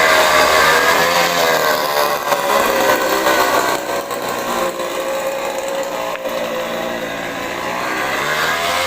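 Small 50cc engine on a bicycle running at steady revs, its pitch dropping a little over the first few seconds and rising again near the end.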